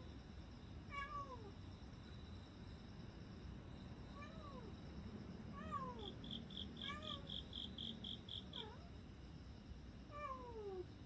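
A stray cat meowing again and again, about five drawn-out meows that each fall in pitch. In the middle, a quick run of about ten short high chirps sounds under the meows.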